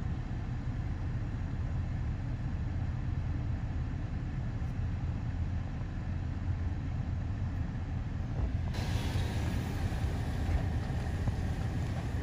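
Wind buffeting the microphone: a steady low rumble, joined by a brighter hiss about nine seconds in.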